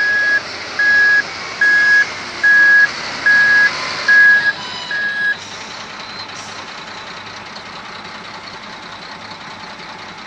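Reversing alarm of an XGMA wheel loader beeping seven times, about one beep every 0.8 s, over its running engine. The beeping stops about five seconds in and the engine runs on steadily.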